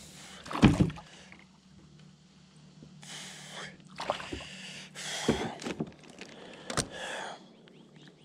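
A hooked largemouth-type bass being landed at the side of a kayak. There is a loud knock about a second in, then several short bursts of splashing as the fish thrashes at the surface and is lifted out.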